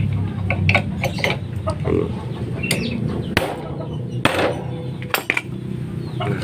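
Hammer tapping a flywheel puller on a Honda Supra X engine, about half a dozen sharp metal knocks at uneven intervals, to shock the magneto flywheel loose from the crankshaft taper.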